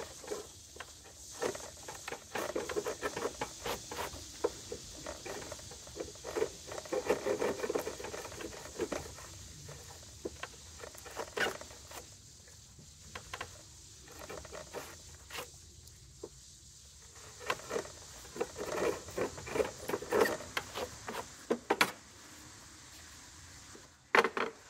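A steel wood chisel worked by hand on the end of a board: irregular bursts of scraping and small clicks, with a sharper click now and then.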